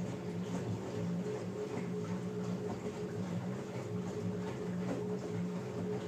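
LG Direct Drive front-loading washing machine tumbling wet laundry in its drum: a steady motor hum with the irregular swish and slosh of the clothes falling.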